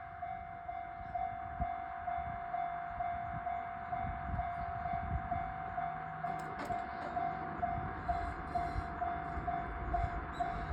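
Japanese level-crossing alarm ringing its steady electronic "kan-kan" warning, a bit over two strikes a second, with a low rumble underneath.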